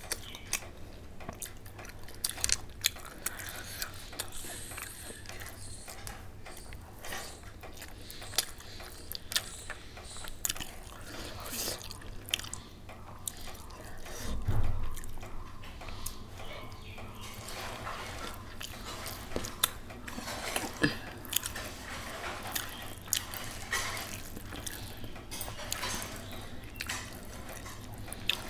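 Close-up eating sounds: chewing rice, boiled egg and meat curry eaten by hand, with many short wet mouth clicks and smacks. A dull thump stands out about halfway through.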